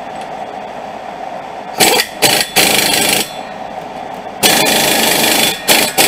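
Impact wrench running down the axle nut on a new front wheel hub assembly in short bursts: three quick bursts about two seconds in, a longer burst of about a second past four seconds, then short blips near the end. The nut is being run down until nearly tight, ahead of final torquing with a torque wrench.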